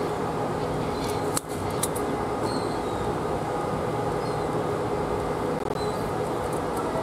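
Steady mechanical drone with a low hum from a docked cruise ship's running machinery, with one brief click about a second and a half in.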